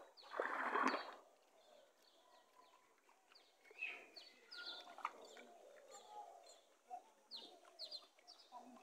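Muddy pond water splashing for about the first second as a person wades and gropes through it, then small birds chirping with short, high, falling calls, a quick run of them near the end.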